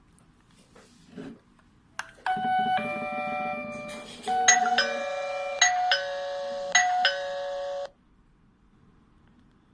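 Wi-Fi video doorbell ringing: a click, then an electronic chime tune of sustained notes, with new notes struck about once a second, cutting off after about six seconds.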